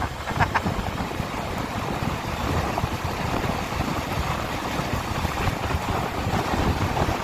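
Motorcycle engine running steadily while riding along at road speed, mixed with wind on the microphone.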